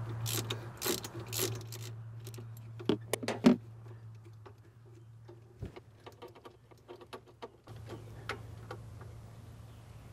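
Ratchet wrench with a spark plug socket clicking in short runs as a spark plug is unscrewed, then scattered light metal clicks from the socket and plug. A steady low hum runs underneath.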